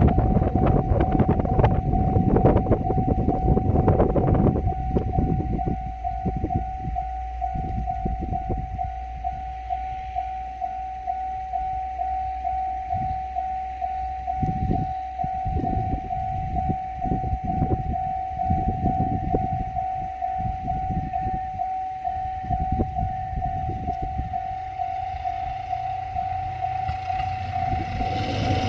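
Japanese level-crossing warning bell ringing with a steady, evenly repeating electronic ding, while a KiHa 54 diesel railcar rumbles slowly over the crossing with irregular knocks. Heavy wind noise on the microphone for the first four seconds or so.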